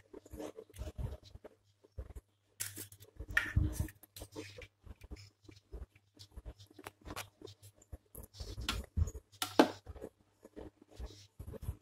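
Scattered small clicks, taps and crackles as eggs are cracked into a stainless-steel mixer-grinder jar of beetroot paste and a steel spoon knocks against the jar, over a faint low hum. There are a few louder knocks, one about three and a half seconds in and another near the end.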